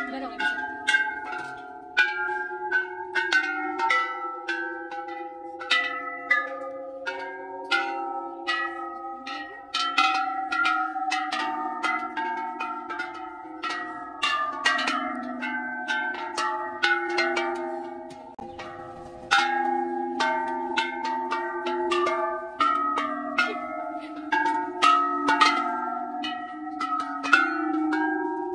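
A row of large hanging metal temple bells struck one after another, about one or two strikes a second, each bell ringing on under the next so the tones overlap in a continuous clangour.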